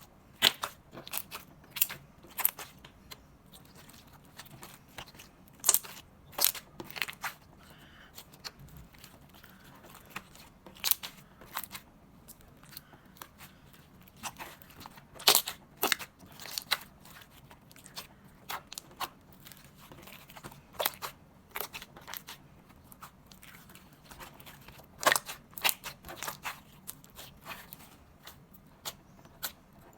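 Slime being worked by hand, giving off sharp, irregular pops and clicks, some in quick little runs, as air pockets burst while it is squeezed and stretched.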